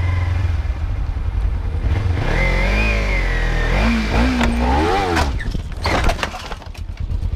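Sport motorcycle's engine running, then a long wavering shout from about two seconds in as a car cuts across. Around five to six seconds in comes a quick run of crashing knocks and clatter: the car pushes the motorcycle over and it goes down.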